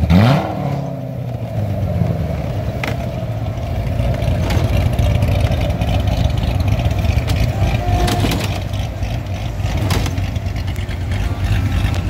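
A C7 Corvette Stingray's 6.2-litre LT1 V8, fitted with a big aftermarket cam and running the factory Z06 exhaust, gives a quick rev that rises and falls right at the start. It then runs steadily at low revs as the car pulls away.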